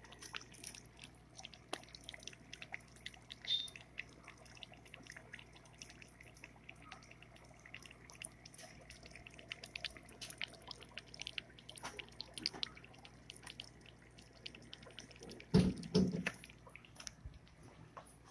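Aquarium water dripping and bubbling: small irregular plinks and drips over a low steady hum. Two louder knocks come about fifteen and a half seconds in.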